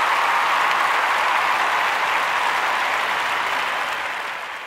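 Applause, a steady dense clapping that fades out near the end.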